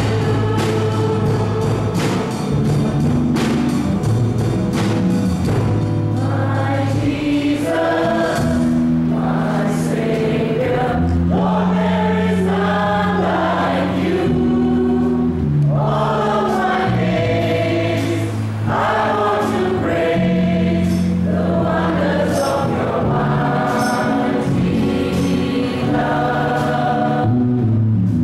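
A small worship group of men and women singing a praise song together to strummed acoustic guitar, over steady held low notes that change every second or two.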